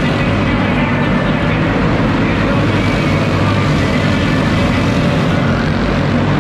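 A pack of racing go-karts with clone single-cylinder four-stroke engines running around an indoor oval, making a steady, unbroken engine drone.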